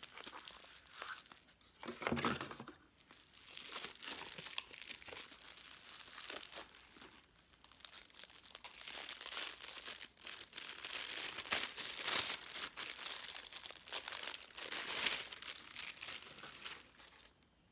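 Clear plastic wrapping crinkling and rustling in irregular bursts as a camera lens is unwrapped from it, dying down near the end.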